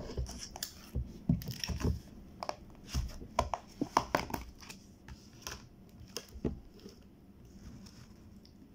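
Handling noise close to the microphone: an irregular string of knocks, clicks and crinkling rustles, busiest in the first half and thinning out after about five seconds.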